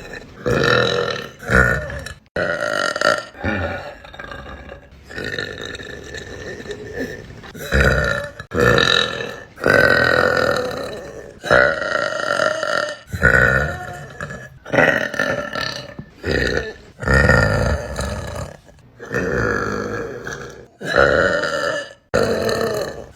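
A woman burping: a long string of loud, drawn-out burps, a dozen or so, each about a second long, one after another with abrupt breaks between them.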